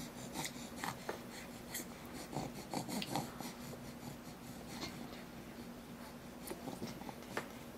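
Faint, scattered clicks and smacks of a five-month-old baby eating puréed peas from a spoon.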